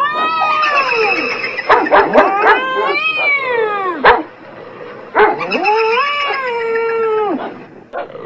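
Long, wavering animal wails from a cat yowling and a dog howling. There are three drawn-out calls, the last running from about five to seven seconds in, with a few short sharp yips or barks about two seconds in.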